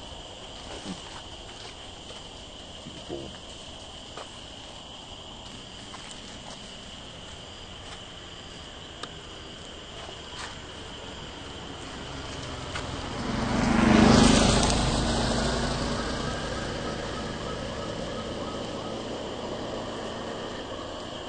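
Steady high-pitched insect drone. About two-thirds of the way through, a passing motor vehicle swells up and then slowly fades, and it is the loudest sound.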